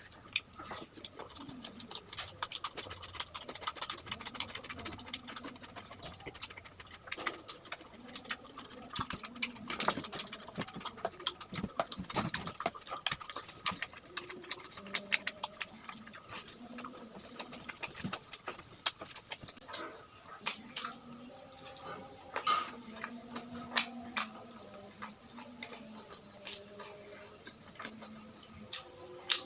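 Close-miked eating sounds: chewing with a quick, irregular run of wet mouth clicks and smacks.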